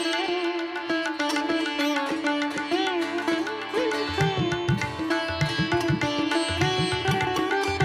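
Instrumental background music: a melody with sliding, ornamented notes over a steady drone, with low drum beats coming in about halfway through.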